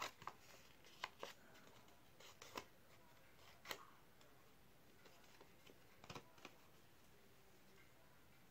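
Scissors snipping: a few faint, irregular snips over the first six seconds, then they stop.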